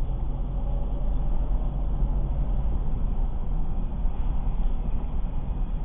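Interior road and drivetrain rumble of a moving 2006 Ford Escape Hybrid, with a faint steady squeak over it in the first half. The owner links the squeak to the brakes.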